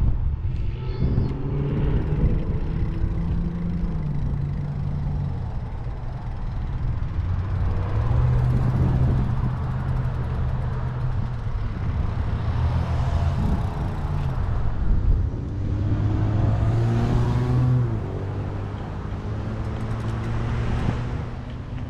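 Wind buffeting the microphone of a moving e-bike, with a low steady drone that shifts pitch in steps, and road traffic passing close by, swelling loudest several times.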